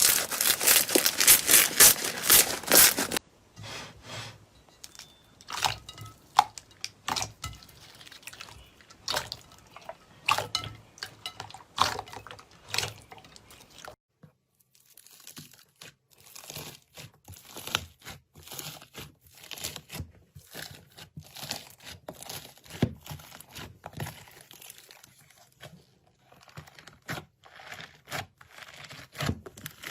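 Slime being handled close to the microphone: a dense run of crunchy crackles for about the first three seconds, then scattered wet clicks and pops, pausing briefly about halfway through before the clicks carry on.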